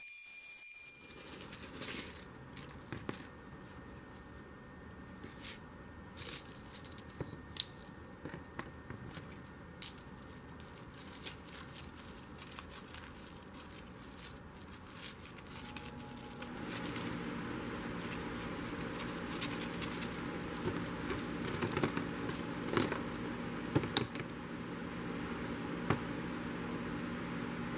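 Small metal parts and tools clinking and tapping at irregular intervals. About halfway through, a steady hum with a hiss joins in underneath.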